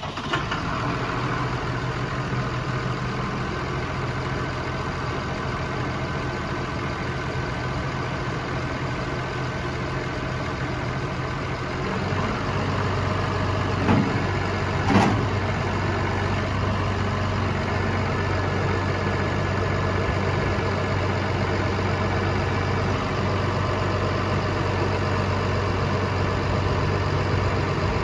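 Case IH Puma 165 tractor's six-cylinder diesel idling steadily just after being started. About twelve seconds in, its note steps down slightly and grows a little louder, and two short knocks follow a second apart soon after.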